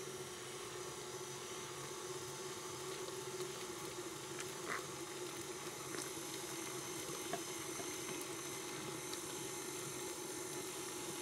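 Stand mixer running steadily at low speed, an even motor hum with a hiss, mixing cake batter. A few faint clicks of a spatula against the glass measuring cup and bowl.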